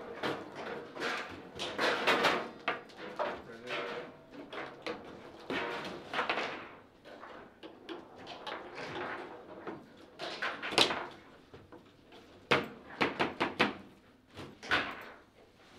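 Table football being played: handles and rods sliding and rattling, and the ball knocked by the players' figures against the table's walls. Sharp, separate knocks come out clearly in the second half, several in quick succession.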